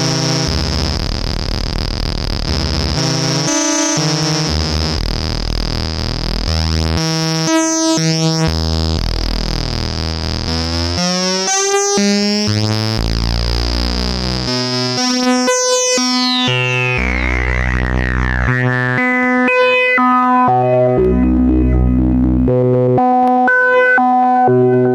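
PAiA Fatman analog synthesizer playing a run of low notes that change every half second to a second or so. A steady high tone sits over the first half, and a falling filter sweep comes a little past the middle.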